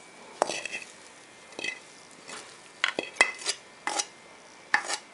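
Metal spatula scraping and tapping against a frying pan and a plate while scooping out cooked mashed-potato mixture. About eight sharp, irregularly spaced scrapes and knocks.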